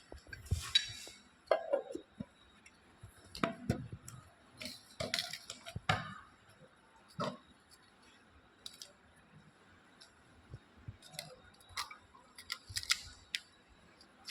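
Irregular clicks, taps and clinks of small hard parts and tools being handled while working on an electric fan, with a few louder knocks in the first half and a cluster of sharp clicks near the end.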